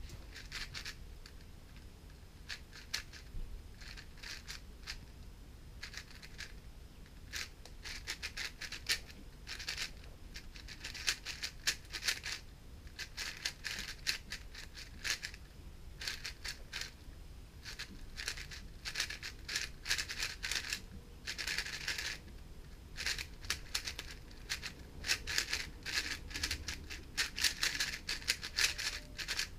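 GAN 460 M magnetic 4x4 speedcube being turned fast in a timed solve: rapid plastic clicking and clacking of layer turns, coming in bursts of a second or two with short pauses between.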